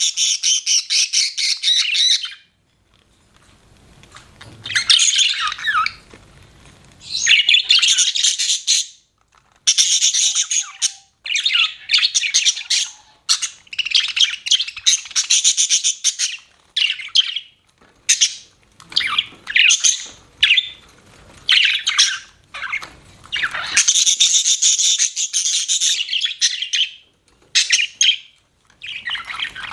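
Budgerigars chirping in rapid, high-pitched runs broken by short pauses, with a brief lull a few seconds in.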